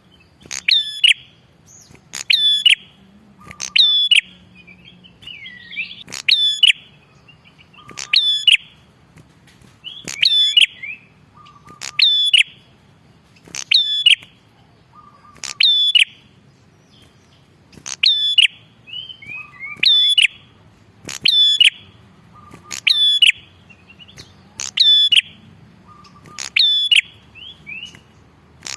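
Prenjak kepala merah singing: a loud, sharp, high call repeated evenly about every two seconds, with softer chattering notes in some of the gaps.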